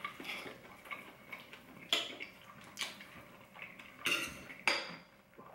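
Metal fork and knife scraping and clinking against a plate while braised beef short rib is cut, with four sharper clinks spread through.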